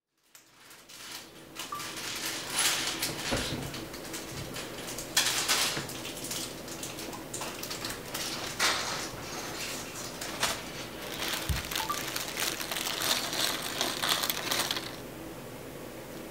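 Rustling, crinkling and light clatter of toy boxes and packaging being handled, in irregular bursts every few seconds.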